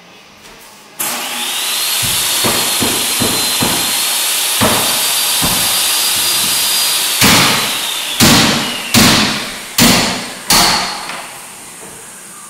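A motor runs with a steady high whine from about a second in and winds down after about seven seconds, with light knocks over it. Then come five loud, sharp blows about a second apart: a mallet striking a flooring nailer, driving the nails into hardwood floorboards.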